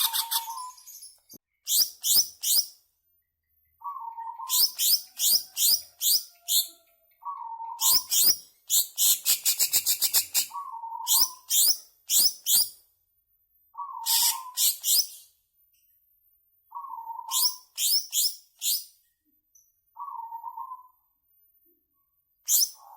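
Cucak ijo (green leafbird) singing loud, agitated 'ngamuk' song in repeated phrases. Each phrase opens with a short low whistle followed by a quick run of high sweeping notes, with a longer rapid trill about nine seconds in and brief silent pauses between phrases.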